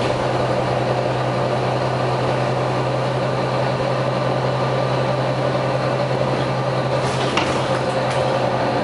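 Volvo B9TL bus engine running at a steady pitch: an even low drone with a broad hiss over it.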